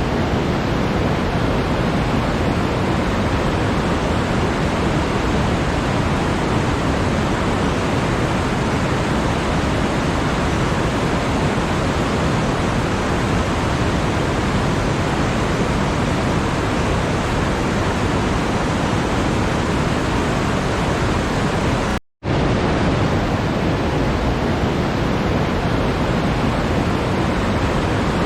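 Steady, even rushing noise with no tones or rhythm. It cuts out completely for a split second about 22 seconds in, then resumes unchanged.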